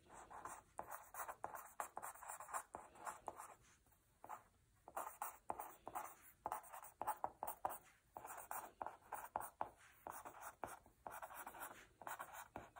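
Pen scratching across a paper worksheet, writing out a line of words in quick short strokes, pausing briefly a few times.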